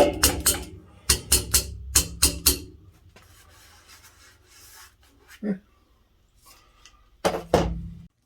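Background music with a steady drum beat and bass; it fades after a few seconds, comes back loud near the end, then cuts off abruptly.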